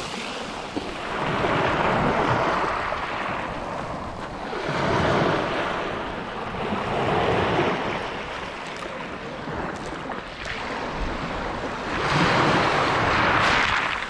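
Small Black Sea waves breaking and washing up over a pebble beach, the foam fizzing among the stones. The surf swells and ebbs every few seconds and is loudest near the end.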